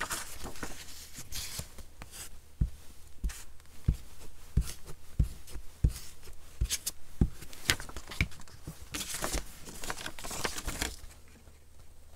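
Sheets of paper and card being handled and slid across a cutting mat: rustling and scraping, with a run of light taps and thuds on the tabletop, about two a second, through the middle, and a longer stretch of rustling near the end.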